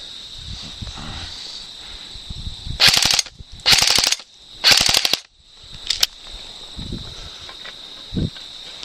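Airsoft gun firing on full auto: three short bursts of rapid shots about a second apart.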